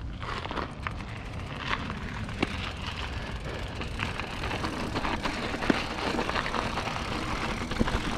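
Diamondback Recoil mountain bike rolling over a dirt trail: a steady rumble of wind and tyre noise with scattered clicks and knocks from the bike.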